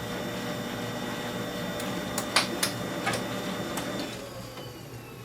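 Samsung CLP510 colour laser printer running for a test print: a steady motor hum with a few sharp clicks about two and a half seconds in, then the mechanism winds down near the end. The paper feed stops short, and the printer then reports a jam in tray 1.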